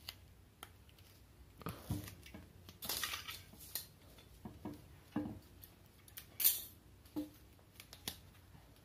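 Hands working a roll of tape against a small LED lamp and its wires: scattered light clicks and knocks, with two short rasps of tape pulled off the roll, about three seconds in and again near six and a half seconds.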